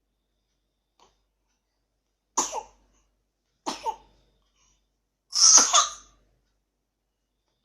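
A young child with a cold coughing three times: two short double coughs, then a louder, longer cough about five seconds in.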